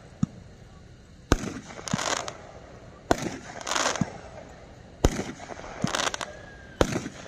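Brothers 'Riding Shotgun' 25-shot fireworks cake firing shot after shot, about one every two seconds. Each shot gives a sharp low thump as the shell leaves its tube, then a crackling, hissing break about half a second later.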